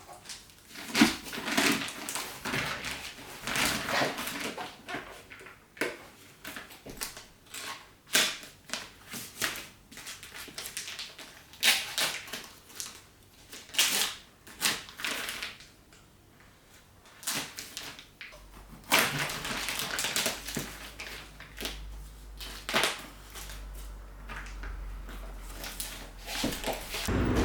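Irregular rustling, clicking and knocking, like objects being handled and moved about, with a low steady hum joining about two-thirds of the way through.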